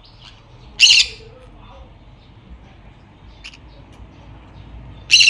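Pet parrots giving two short, loud, harsh squawks about four seconds apart, with faint chirps between.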